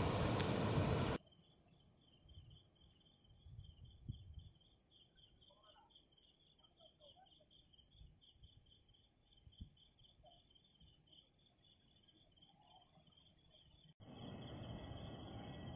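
Crickets and other night insects chirring steadily, a high continuous trill over a rapidly pulsing chirp. It opens with about a second of loud, even jet-engine noise that cuts off abruptly, and a louder rushing noise cuts back in near the end.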